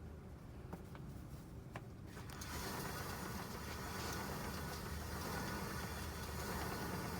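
Toyota FJ Cruiser making the abnormal noise its owner suspects comes from the front differential's needle bearing: a low rumble joined about two seconds in by a louder rushing noise with a faint whine.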